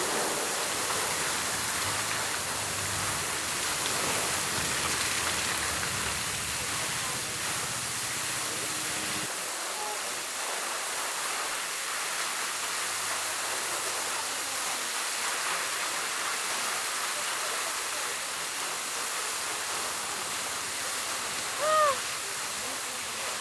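Waterfall pouring onto a road, a steady heavy rush of falling water.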